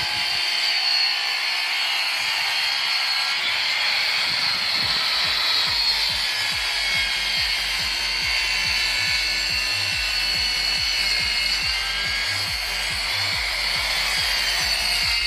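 Power tool working wood, a steady high whine, with background music and its beat coming in about five seconds in.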